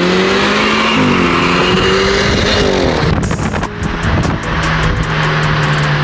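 BMW 328i's turbocharged four-cylinder through an AWE axle-back exhaust, heard from a car driving alongside as it accelerates. The revs climb, drop at an upshift about a second in, climb again, then drop again about three seconds in and hold steady.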